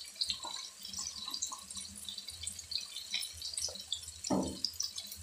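Onion, tomato and spice masala sizzling and crackling in hot oil in a steel kadai, with many small scattered pops over a low hum. A brief muffled sound about four seconds in is the loudest moment.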